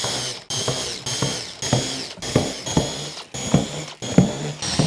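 Electric drill boring pilot holes in plywood, the motor whining in short repeated runs of about half a second to a second, with a rattle of the bit cutting in each run.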